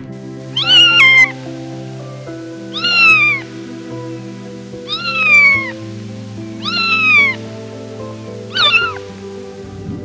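A cat meowing five times, about every two seconds, each call rising then falling in pitch, over background music with long held notes.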